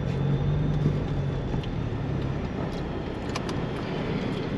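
A 4x4's engine running steadily while driving over sand, with a low engine hum that eases a little over two seconds in under constant driving noise. A few light clicks near the middle.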